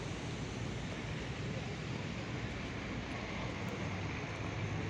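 Steady bus-station ambience: a continuous low rumble of buses and traffic.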